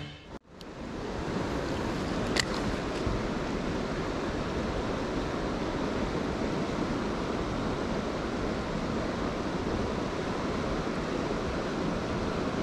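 Steady rush of a flowing river with wind buffeting the microphone, and a single light click about two seconds in.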